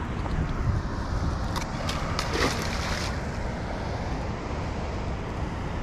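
Wind buffeting the microphone in a steady low rumble. About one and a half to two and a half seconds in come a few short splashy crackles, as the released bowfin goes back into the water.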